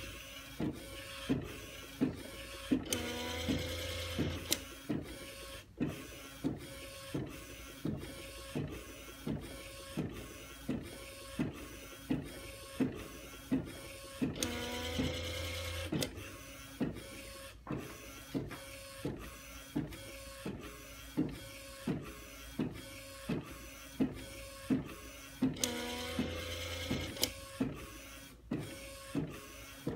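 Epson direct-to-garment inkjet printer printing onto a shirt: the print-head carriage sweeps back and forth with a knock at each stroke, a little under two a second. About every eleven seconds a longer whirring motor run with rising tones comes as the shirt platen steps forward.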